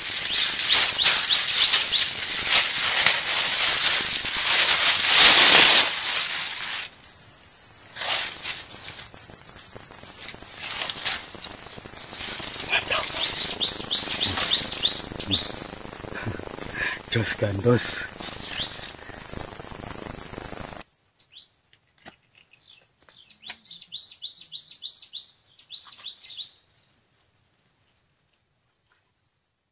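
Loud, steady, high-pitched shrill of insects, with rustling and handling noises over the first part. The whole sound drops suddenly in level about two-thirds of the way through.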